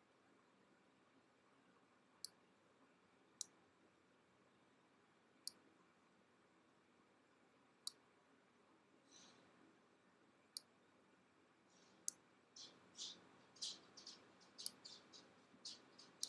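Computer mouse button clicking, about six sharp single clicks a couple of seconds apart, over near-silent room tone. In the last few seconds a rapid, irregular run of faint high chirps or squeaks begins.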